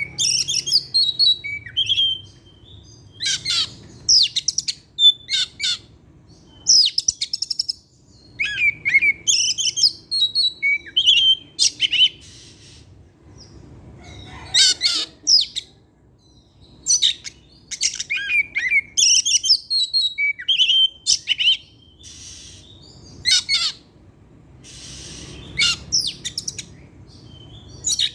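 Oriental magpie-robin singing a fast, varied song: short sweeping whistles mixed with quick rattling and chattering notes, delivered in bursts with brief pauses between phrases, the bird in full song running through its repertoire.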